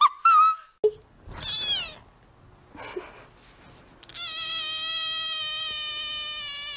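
A cat's quick run of cackling chirps, cut off about half a second in. Then a grey kitten meows: a short falling meow at about a second and a half, and one long, drawn-out meow from about four seconds in.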